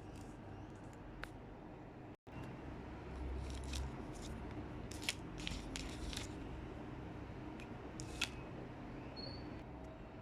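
Small plastic Lego pieces being handled and pressed together: scattered short clicks and snaps, the sharpest about halfway through and again near the end, over a faint steady hum.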